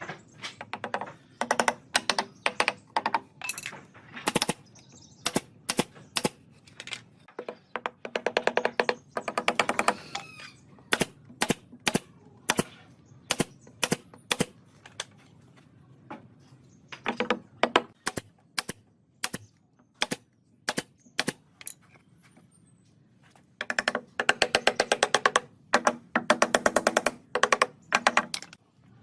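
Sharp knocks and clicks, some single and irregularly spaced, others packed into fast rattling runs around nine seconds in and again from about 24 to 28 seconds in.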